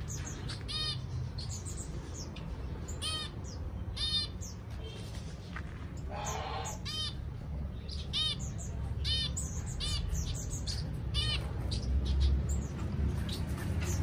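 Zebra finches in an aviary giving short, repeated calls, a dozen or so spaced about a second apart, over a steady low rumble.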